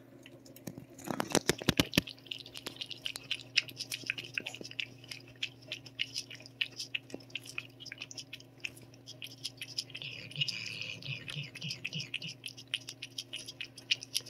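A cat licking paste treat from a squeeze tube held in a hand: rapid wet licking and smacking clicks, loudest about a second or two in.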